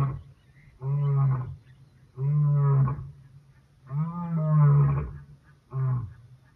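Lion roaring: a string of about five calls roughly a second apart, the later ones shorter.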